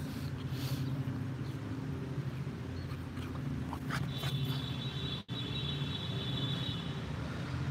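Road traffic running at an intersection: a steady low rumble of engines. About four seconds in, a high, steady squeal sounds for nearly three seconds.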